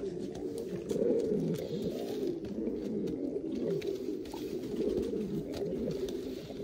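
Male pouter pigeon cooing over and over, a low warbling coo.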